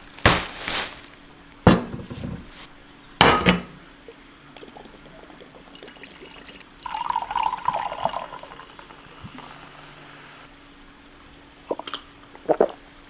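A drink being poured into a cup, a short pour about seven seconds in. There are three sharp knocks in the first few seconds and two small clicks near the end.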